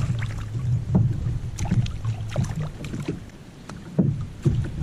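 Wind buffeting the microphone as a steady low rumble, with irregular sharp clicks, knocks and small splashes as a hooked fish is brought alongside a kayak. A louder knock comes about four seconds in.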